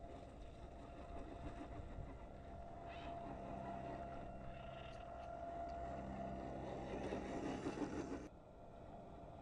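RC4WD Trail Finder scale crawler driving through a shallow puddle: a steady electric motor and gear whine with water splashing. It grows louder as the truck comes up to and passes close by, then cuts off abruptly near the end.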